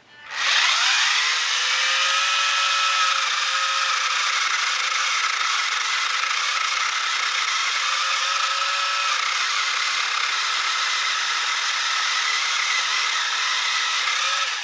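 Ryobi 40-volt cordless Expand-It 10-inch pole saw spinning up and running steadily with a whine, its chain cutting into a small stump of wood. The motor winds down right at the end.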